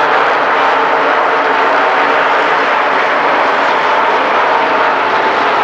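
Pack of dirt-track race cars running at speed around the oval, several engines at once in a steady, loud drone.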